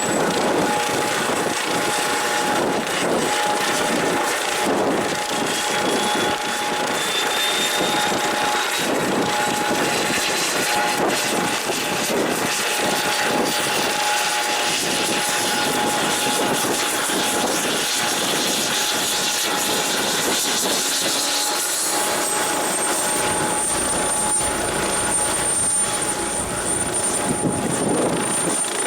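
Rescue helicopter running on the ground, with its turbine engines whining and rotors chopping steadily. A high turbine whine climbs in pitch about twenty-two seconds in and then holds, as the engines spool up.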